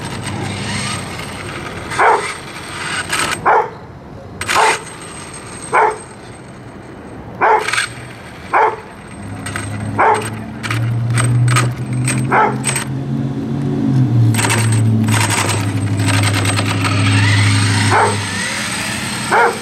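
A dog barking about ten times, single barks at uneven gaps of one to four seconds. Through the second half a steady low hum runs under the barks, and near the end a whine rises as the electric RC truck pulls away.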